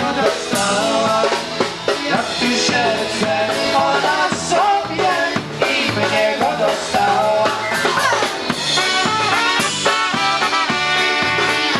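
Live polka band playing an up-tempo polka, with a drum kit keeping a steady beat under keyboard and other melody instruments.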